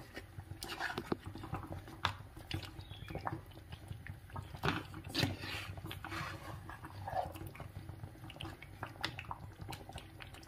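A wooden spoon stirring thick mackerel curry in a clay pot: irregular knocks and scrapes of wood against the earthenware. A couple of louder, longer sounds come about halfway through.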